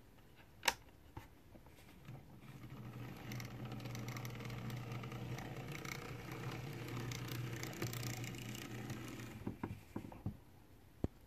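Brass HO scale steeple cab model electric locomotive running along the track: its small motor hums steadily with a light rattle of wheels on the rails, building up about two seconds in and falling away after about nine seconds. A sharp click comes just before it starts, and a few light clicks come near the end.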